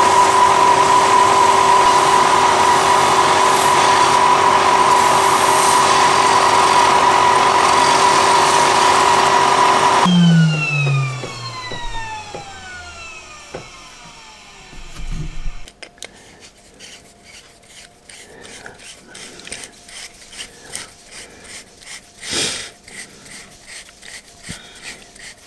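Stationary belt sander running with a steady hum while a white roller spun in a drill is ground true against the belt. About ten seconds in it is switched off and its pitch falls as it coasts to a stop over some five seconds, followed by light handling noises and one sharp click.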